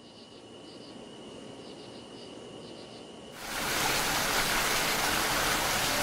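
Insects chirping softly in short repeated groups over a thin steady high tone, growing louder; about three and a half seconds in, a loud even hiss like heavy rain cuts in abruptly and carries on.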